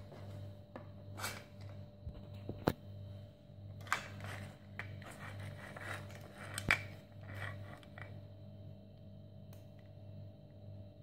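Plastic plug-in power adapters and their cables being handled and plugged together on a tiled table: a few sharp clicks and knocks with scraping and rustling, over a steady low hum.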